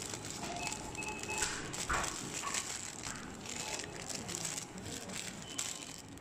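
Thin plastic grocery bags rustling and crinkling as groceries are handled, with a few short, high squeaks mixed in.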